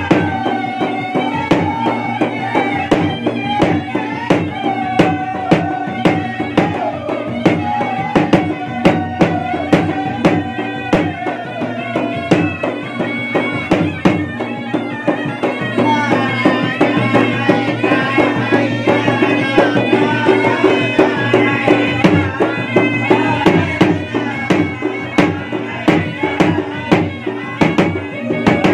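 A pair of Bugis-Makassar gendang drums beaten with stick and hand in a fast, dense rhythm, with a reed pipe (puik-puik) playing a continuous, wavering melody over them.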